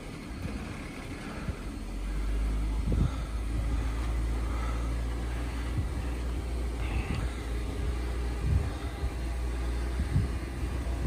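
Jeep Wrangler Rubicon's engine running under load as it crawls up a steep rock cleft, a steady low drone that grows louder about two seconds in. A few short low thumps come through it.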